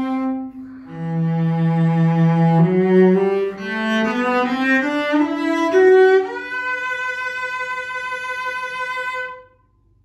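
E.R. Schmidt 'Amati' workshop cello from Markneukirchen, about 1910, played with the bow: a held note dies away, then a phrase starts about a second in on a low note and climbs through quicker notes to a long high note with vibrato, which stops shortly before the end.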